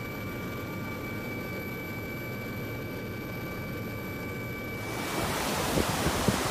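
Steady low rumble of a helicopter with a faint high whine, heard from inside the aircraft. About five seconds in it switches to a louder rush from a muddy landslide torrent, with wind on the microphone.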